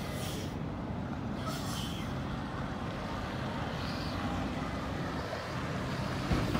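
Semi-truck's diesel engine rumbling steadily as the rig drives off, with a brief hiss about a second and a half in.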